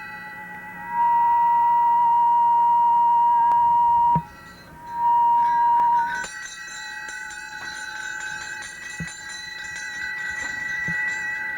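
Audio feedback: several steady, high-pitched tones ringing together. The loudest howl switches on about a second in, cuts off suddenly about four seconds in, and comes back briefly before a higher set of tones takes over.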